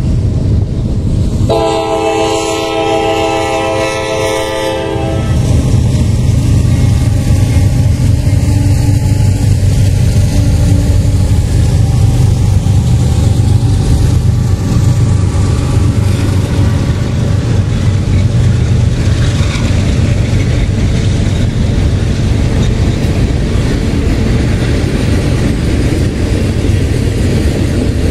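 Norfolk Southern diesel freight train passing: the locomotive's air horn sounds a chord near the start, broken off once, with the second blast lasting about three seconds. Then comes the steady deep rumble of the locomotives going by, and the freight cars rolling on the rails.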